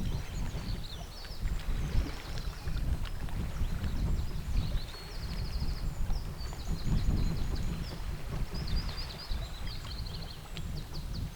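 Outdoor shoreline ambience: a low, uneven rumble of wind and water that rises and falls, with small birds chirping and giving quick high trills throughout.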